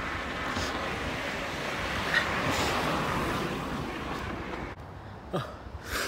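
Wind noise buffeting a handheld phone's microphone during a run, steady rushing until it eases about three-quarters of the way through as the runner stops. Near the end come a couple of short, sharp gasps for breath.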